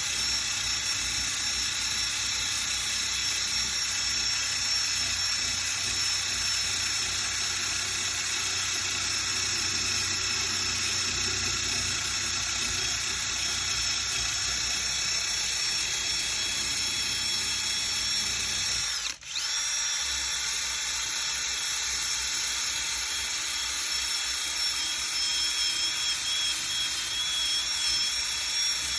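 Power sander running steadily against the metal hood, sanding off old paint with a high whine. About nineteen seconds in it cuts out for a moment, the whine dipping, then spins straight back up.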